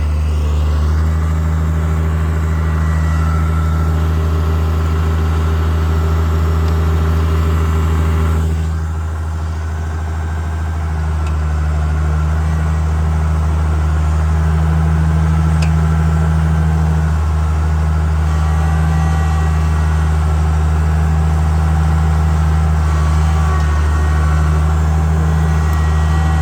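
International Harvester 856 tractor engine running steadily. About eight seconds in it eases off for a couple of seconds, then picks back up.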